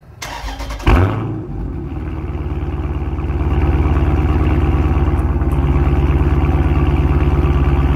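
A car engine being started: it cranks, catches with a loud flare about a second in, then settles into a steady idle with an even low pulse heard through the exhaust.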